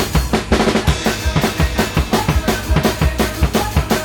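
Fast rock or punk drumming with bass drum and snare, part of a backing music track, with hits about five to six times a second.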